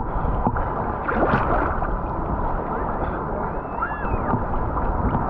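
Seawater sloshing and lapping around a camera held at the waterline in choppy waves, with some wind on the microphone. A short curved rising-and-falling call is heard about four seconds in.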